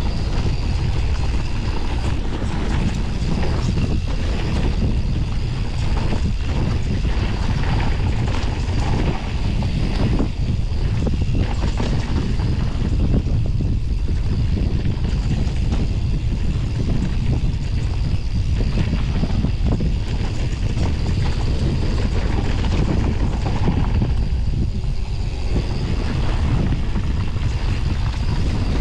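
Mountain bike descending a trail at speed, with wind buffeting the microphone as a steady loud rumble. Short knocks and rattles from the bike over rough ground run through it.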